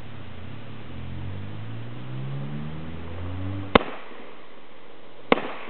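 Two AR-15 rifle shots about a second and a half apart, each a sharp crack with a short echo, coming near the end. Before them a low hum rises slowly in pitch, like an engine in the background.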